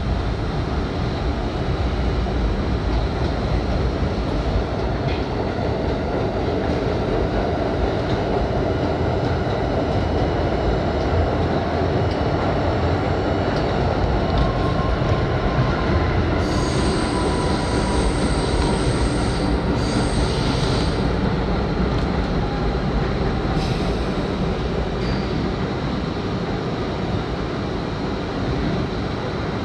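R32 subway train running through a tunnel, heard from inside the front car: a steady rumble of wheels on rail. A thin high squeal from the wheels comes in a little past the middle and lasts a few seconds.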